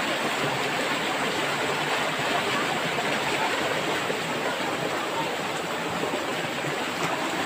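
Fast-flowing, muddy stream rushing steadily: a continuous, even hiss of moving water.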